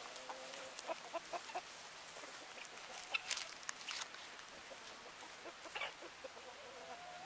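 Chickens clucking softly: a run of short clucks about a second in and a longer, slightly rising call near the end. A few sharp crackles come around three to four seconds in.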